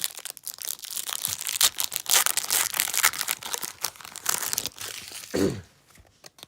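Foil wrapper of a Pokémon card booster pack being torn open and crinkled, a dense crackling that dies down about five and a half seconds in.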